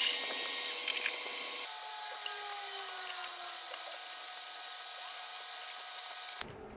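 A milling machine drill spindle fades out after drilling steel, with a couple of sharp clicks. Then come quiet, scattered small clicks and scrapes of a hand tap being turned with a tap wrench, threading a steel T-nut held in a vise.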